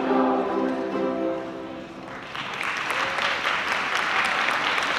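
Ukulele group's song ending on a held final chord that fades out, followed about two seconds in by audience applause.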